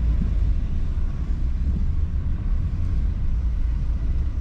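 Steady low rumble of a car driving slowly through traffic: engine and road noise.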